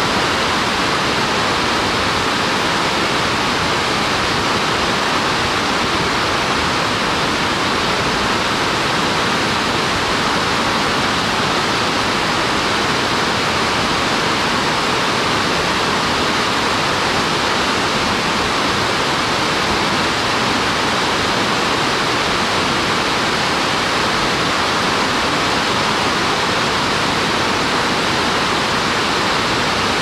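Shiraito Falls, many thin falls spilling over a broad cliff face: a steady, unbroken rush of falling water.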